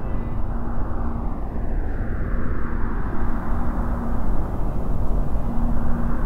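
A loud rumbling drone with a steady low hum under it, and a slow whooshing sweep that falls over the first few seconds and rises again near the end, like a jet flying past.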